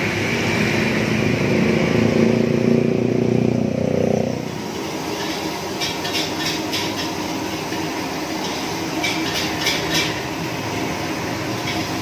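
Street noise: a vehicle engine running close by for the first four seconds or so, then dropping away to a steady background rumble with scattered light clicks and clinks.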